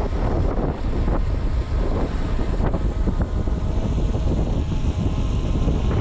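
Wind buffeting the microphone of a hood-mounted camera, over the steady low rumble of a 2020 Subaru Outback driving across rough dirt.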